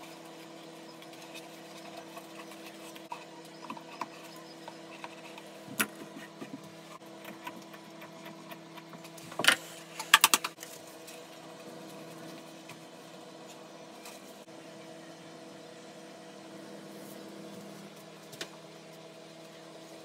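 Steady hum from a running appliance or machine, under a few light knocks and clatters as a small wooden box is handled and turned over on a workbench. The loudest is a quick run of knocks about ten seconds in.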